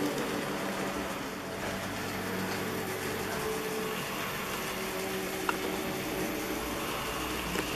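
A model train running along the track: a steady mechanical hum of the locomotive's motor and the rolling noise of the wheels on the rails, with one short click a little over halfway through.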